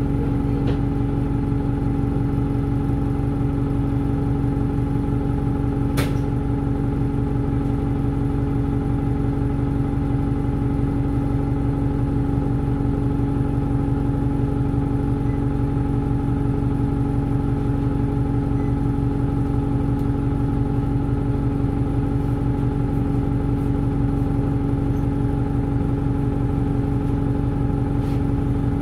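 Alexander Dennis Enviro 200 bus's diesel engine idling with the bus standing still, heard from inside the passenger cabin as a steady, even hum with a fast low throb. A single sharp click about six seconds in.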